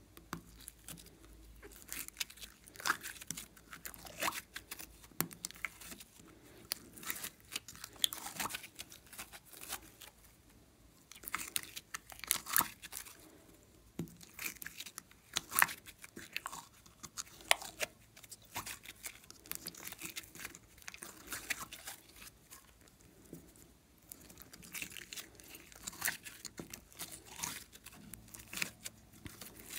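Slime being pressed and worked inside a clear plastic segmented container, giving irregular sticky crackles, clicks and pops in clusters with short quieter gaps.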